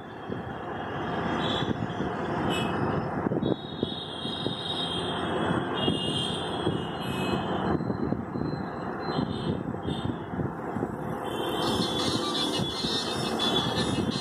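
Steady, fairly loud background rumble and hiss like road traffic or machinery, with a higher hum that comes and goes, and scattered short clicks of laptop keys being pressed.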